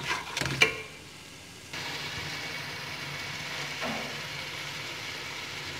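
A spatula scrapes and knocks against a metal pot a few times, then a steady sizzle of masala frying in oil starts suddenly about two seconds in and holds even.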